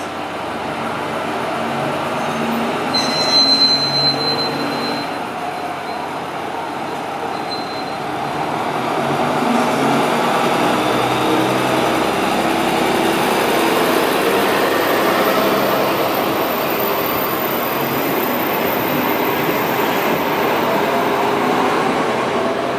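KiHa 47 diesel railcar pulling away from the platform: its diesel engine runs, then grows louder and climbs in pitch from about eight seconds in as the train gets under way and the cars roll past. A brief high-pitched tone sounds about three seconds in.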